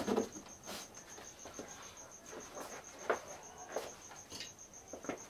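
Scattered light clicks and knocks of handling: a glued wooden brace strip pushed into a laser-cut wooden baseboard module, then tools and clamps moved about on a workbench. Under them runs a faint, high, evenly pulsing tone of several pulses a second.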